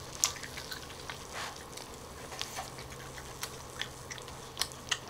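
Cheese and asparagus sizzling faintly on a hot electric grill pan, with scattered small crackles and pops over a low steady hum.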